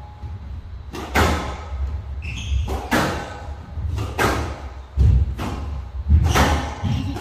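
Squash rally on a glass court: racquet strikes and the ball hitting the walls in a run of sharp cracks and thuds about one a second, each ringing briefly in the hall, with footfalls and a short shoe squeak about two and a half seconds in.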